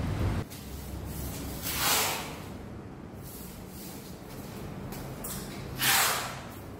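Two short whooshes of hiss-like noise, about four seconds apart, over a faint steady background hum; they have the shape of video-editing transition effects.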